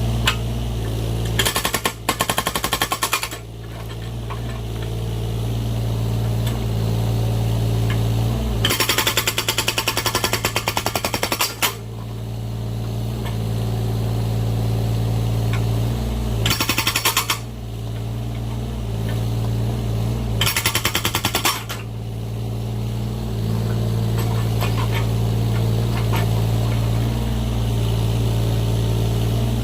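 An excavator-mounted hydraulic breaker hammers in four bursts of rapid blows, each about one to three seconds long, as it splits firewood logs. Between the bursts the excavator's engine runs steadily.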